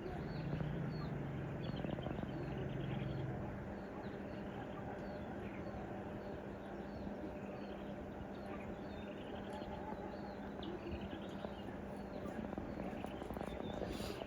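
High chirps repeating about twice a second, with softer warbling calls between them, over a steady low hum; an extra low drone sounds for the first three seconds or so.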